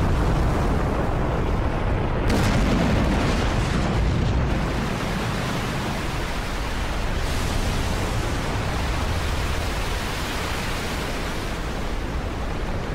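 Explosion sound effect of a huge energy-spear blast in an anime: a long, steady rushing noise with a deep rumble and no separate impacts. It brightens about two seconds in and again about seven seconds in.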